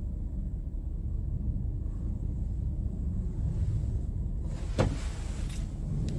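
Low, steady rumble of the Scania R truck's diesel engine idling, heard from inside the cab. A single sharp knock about five seconds in.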